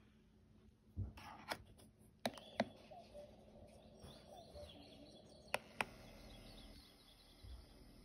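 Sharp plastic clicks, about six in the first six seconds, as buttons on a playard's sound-and-light control panel are pressed. Faint chirps and, from about six seconds in, a steady soft hiss come from its built-in speaker as a soothing nature-sound track plays.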